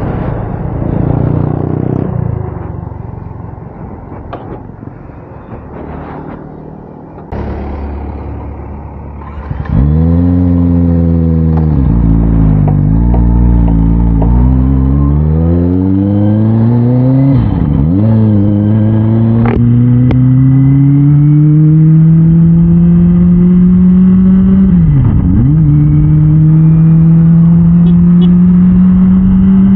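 Kawasaki Ninja ZX-25R's 249 cc inline-four engine. It is quieter for the first ten seconds, then loudly pulls away. The pitch climbs through the gears, dips briefly at two upshifts, and then holds steady at cruising speed.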